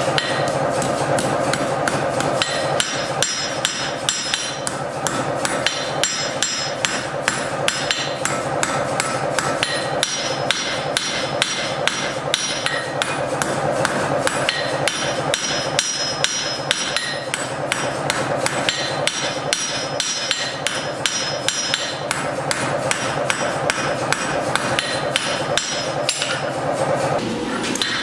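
Hand hammer striking a red-hot steel knife blade on an anvil, forging it in a long run of steady, rhythmic blows over a steady background hum.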